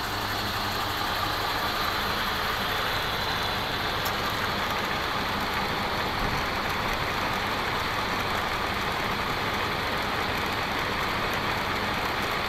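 Heavy engine idling steadily.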